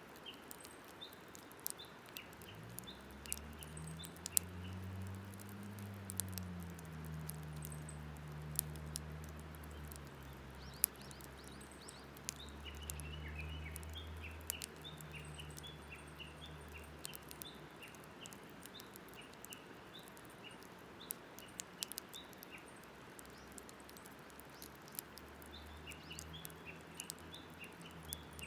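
Wood campfire crackling with frequent sharp pops, while small birds chirp. A low drone swells and fades about three seconds in and comes back near the end.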